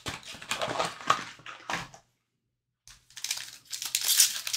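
Foil wrapper of an Upper Deck Stature hockey card pack crinkling and being torn open by hand, in irregular crackles. The sound drops out completely for under a second about two seconds in, and the crinkling returns denser after that.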